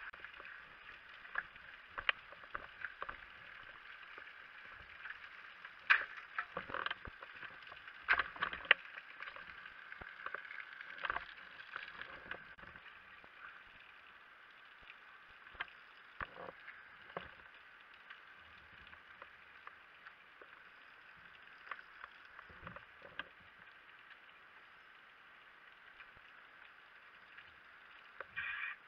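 Sharp knocks and clanks of boots and gear on a firefighters' extension ladder during a climb, densest in the first half, over a steady machine drone.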